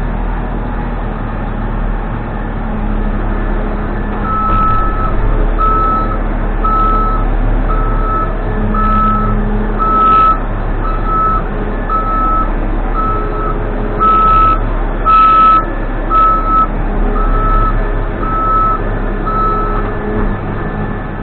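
Case 580N backhoe loader's diesel engine running steadily while its reversing alarm beeps about once a second, starting about four seconds in, as the machine backs up. A few short knocks are heard around the middle.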